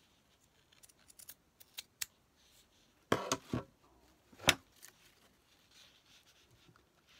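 Scissors snipping: a few light clicks, then several quick cuts about three seconds in and one sharp snip about a second later.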